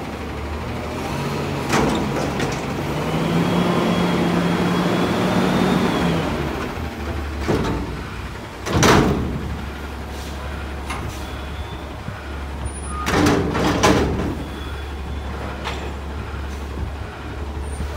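Autocar front-loader garbage truck's diesel engine revving up to drive the hydraulics as the McNeilus arms lower an emptied steel dumpster, then dropping back to a steady idle. Several metal bangs follow as the container is set down and the forks pull out, the loudest about nine seconds in.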